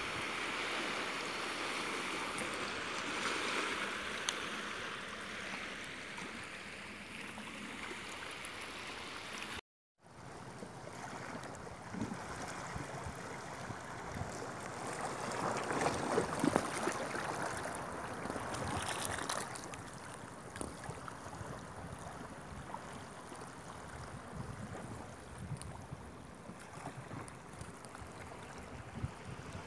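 Shallow sea water lapping and washing among rocks along a rocky shore, a steady rushing. The sound drops out for a moment about ten seconds in.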